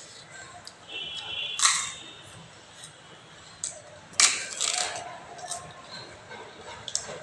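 Close-up eating sounds: a scatter of sharp mouth clicks and smacks while chewing, with two louder crunchy bursts about one and a half and four seconds in.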